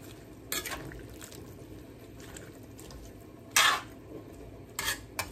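Metal ladle stirring chicken and vegetables in a metal wok: a soft wet shuffle of the food with a few scraping clinks of the ladle against the pan, the loudest about three and a half seconds in.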